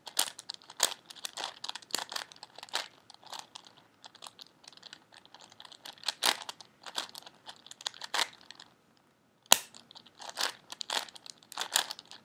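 Plastic 4x4x4 Rubik's Cube being turned, its layers clicking and clacking in quick irregular runs. Near the end, after a brief pause, there is one sharp crack as a piece pops out of the loose, unstable cube.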